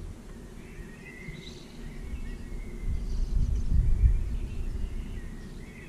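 Faint birds chirping in the background, with a low rumbling noise that swells and is loudest about three to four seconds in.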